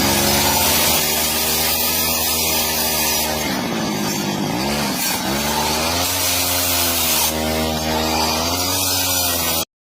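A power tool cutting wood. Its motor runs steadily and its pitch sags and recovers a few times as it takes load, then the sound cuts off abruptly near the end.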